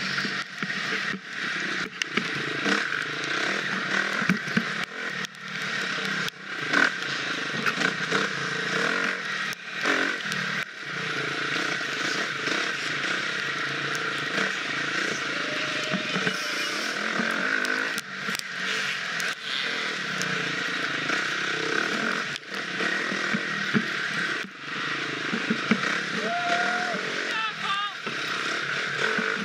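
Husqvarna FX 350's four-stroke single-cylinder dirt bike engine being ridden hard off-road, the throttle opened and chopped again and again so the sound keeps dropping off and surging back.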